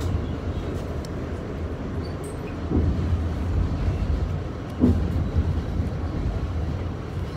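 New York subway car running, heard from inside the car: a steady low rumble with two brief louder thumps, about three and five seconds in.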